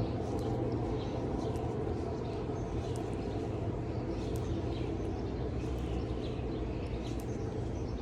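Birds chirping in short repeated calls over a steady low outdoor rumble.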